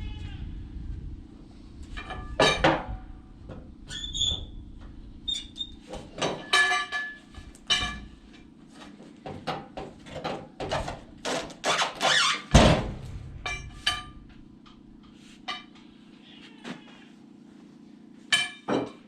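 Irregular knocks, clanks and short squeaks of hard objects being handled, a dozen or more strikes with the loudest about two-thirds of the way in. A steady low hum runs underneath.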